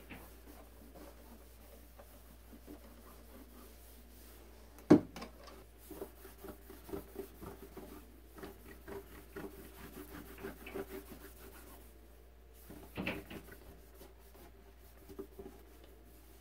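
Cloth rag rubbing back and forth over a Bakelite radio cabinet, working a finish restorer into it: faint, irregular scuffing. A single sharp knock about five seconds in is the loudest sound, with a smaller knock near the end.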